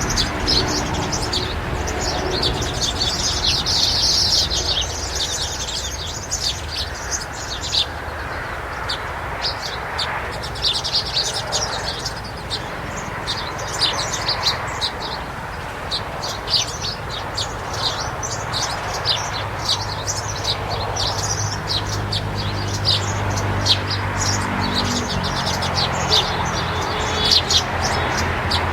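Birds chirping busily, a steady stream of short, high chirps. A low steady hum comes in about two-thirds of the way through.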